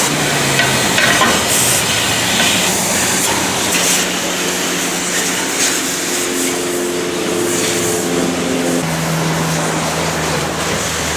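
Steady hiss of high-pressure water spraying from a car wash wand, with a low hum underneath that shifts pitch near the end.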